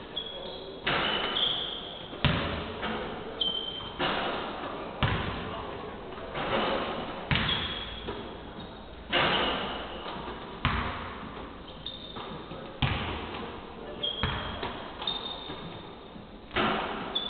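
Basketballs bouncing on a hardwood court in a large echoing hall: irregular thuds about once a second, each ringing on briefly, with a few short high squeaks in between.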